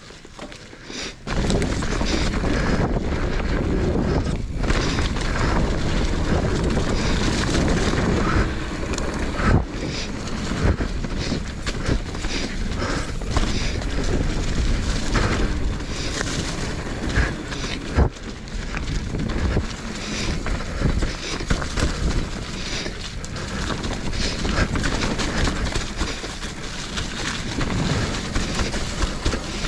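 Wind buffeting the microphone and mountain bike tyres rumbling over rock on a rocky descent, with frequent sharp clattering knocks from the hardtail bike jolting over the rocks. It starts suddenly about a second in.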